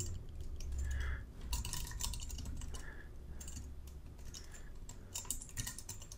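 Typing on a computer keyboard: quick runs of keystrokes with short pauses between them, over a low steady hum.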